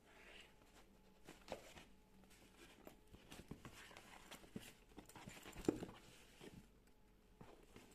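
Faint rustling and light knocks of a jute tote bag with rope handles being handled and opened, with a louder tap about a second and a half in and a sharper one about two-thirds of the way through.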